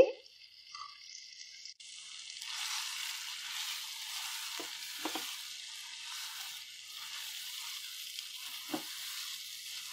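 Chicken pieces sizzling in hot ghee in a karahi as ground spices are added and stirred in; the sizzle grows louder about two seconds in. A few soft knocks of the spatula against the pan come in the middle and near the end.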